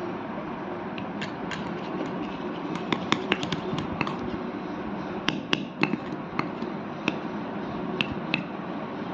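Irregular sharp clicks and taps of a utensil knocking against a bowl as glue and borax activator are stirred into slime, over a steady background hiss.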